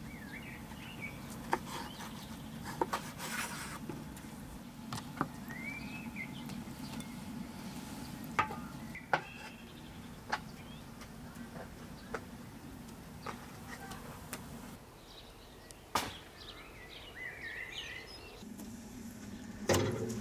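Outdoor ambience: birds chirping now and then over a low steady hum, with scattered sharp clicks and knocks of dishes and pots being handled. The loudest knock comes near the end.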